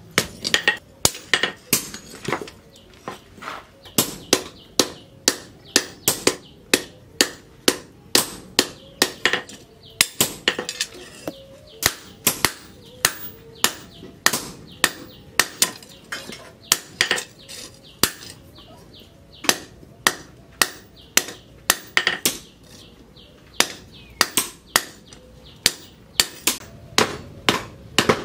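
Hand hammer striking a red-hot leaf-spring steel blade on a round steel anvil post: a steady run of sharp metallic blows, about two to three a second, with a few short pauses.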